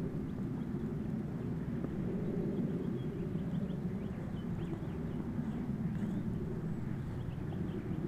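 Steady low outdoor rumble, with faint short high chirps of small birds scattered through the middle.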